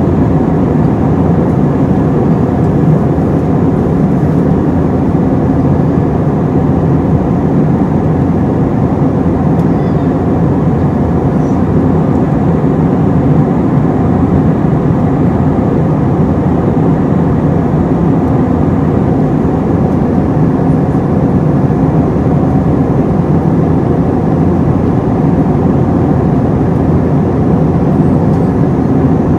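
Steady cabin noise of an Airbus A321-231 in flight, heard inside the cabin: the drone of its IAE V2500 turbofans mixed with the rush of air over the fuselage, unchanging throughout.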